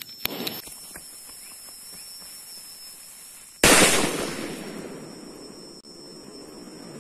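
A lighter clicks and the fuse of a mercun bola ball firecracker catches, then about three and a half seconds in the firecracker goes off with a sudden, very loud bang that rushes and dies away over a couple of seconds, picked up right beside it.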